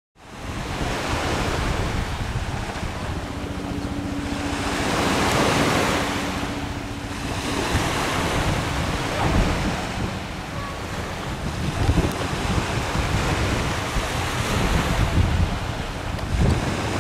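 Wind buffeting the microphone in gusts, with a faint steady hum between about three and seven seconds in.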